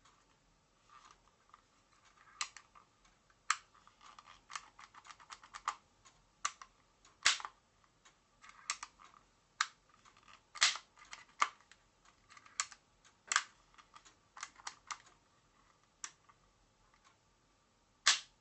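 Irregular small clicks and knocks from hands handling a Marushin AMT Automag gas-blowback airsoft pistol, its metal parts tapping and clicking as it is turned over, with a few sharper clicks among them.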